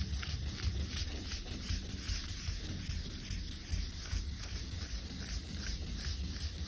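Hand wet sanding of the clear coat with 1500-grit paper on a sanding block: a steady rubbing with repeated short strokes, cutting back orange peel. A steady low hum runs underneath.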